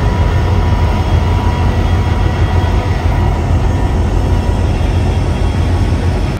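Loud, steady low rumble with a rushing haze, the sound of a moving vehicle's motor with wind on the microphone.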